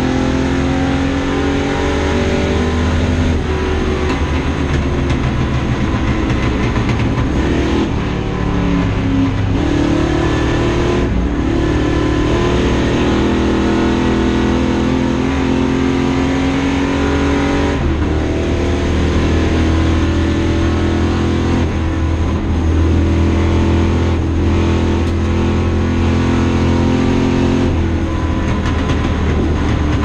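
1959 Ford Thunderbird race car's V8 engine heard from inside the cabin, running hard and climbing in pitch through the revs, with a brief dip every few seconds at each gear change or lift off the throttle.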